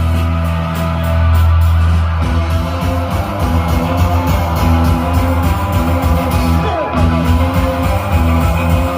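Music led by guitar, with bass. A held low note gives way to a steady rhythmic pattern about two seconds in.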